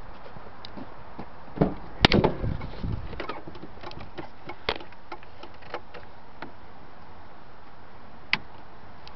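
Pickup truck door being opened and someone climbing into the cab: a couple of knocks, then a sharp click and a short clatter about two seconds in. Scattered light clicks follow as controls in the cab are handled, with one sharper click near the end.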